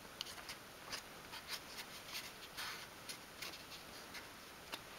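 Faint light ticks, taps and scratchy rubbing of fingers pressing and adjusting a small glued wooden box of thin sheet pieces on a cutting mat.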